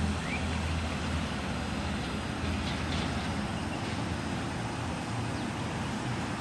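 Steady outdoor background noise of road traffic, with a low vehicle engine drone that fades out after about a second.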